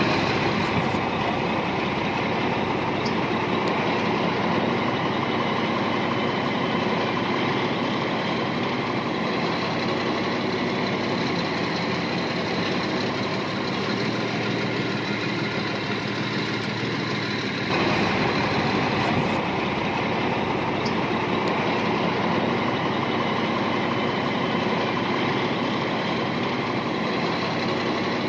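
Heavy earth-moving machine's diesel engine running steadily. The sound changes abruptly about two-thirds of the way through.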